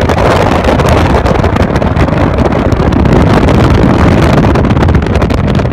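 Wind rushing and buffeting over the microphone from a moving car, mixed with the car's road noise, loud and steady.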